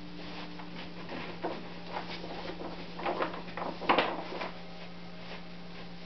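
Small-room noises: scattered soft clicks and rustles over a steady low hum. The knocks bunch together about three seconds in, and the loudest comes about four seconds in.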